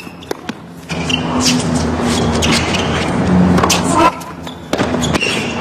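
Tennis rally: sharp pops of racket strings striking the ball, about a second apart, over steady crowd noise.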